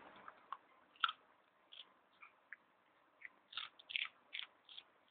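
Dog chewing a carrot: irregular crisp crunches, a sharp one about a second in and a quick run of them near the end.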